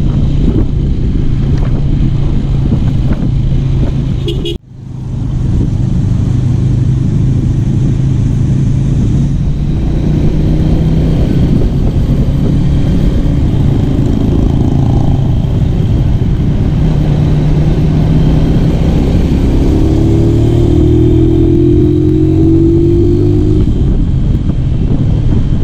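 Stroked-up Honda Tiger motorcycle engine running hard under way, steady, with a slow rise in pitch near the end as it pulls harder; its crankshaft is said to be already vibrating. The sound cuts out abruptly about four and a half seconds in and comes back within a second.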